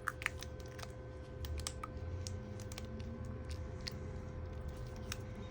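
Light, irregular clicks and taps of a replacement battery pack being handled and lined up inside an open MacBook Pro case, with a few sharper clicks at the very start, over a steady faint hum.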